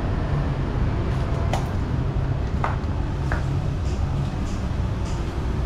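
Steady low background rumble with a few brief faint clicks.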